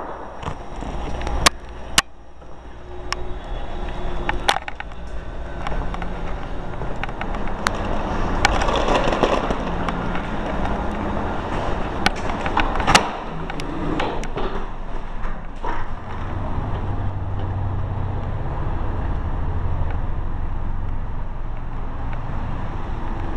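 Handheld camera being carried and jostled: rubbing and scraping on the microphone with several sharp knocks in the first half, and a steady low hum over the last several seconds.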